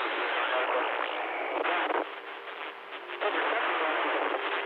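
CB-style radio receiver hissing with static on an open channel, thin-sounding as through the radio's speaker. The noise dips for about a second past the middle, leaving a faint steady tone, then comes back.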